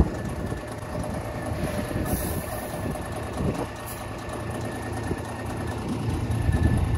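Pigs eating grain scattered on the ground, heard close up, over a steady low rumble.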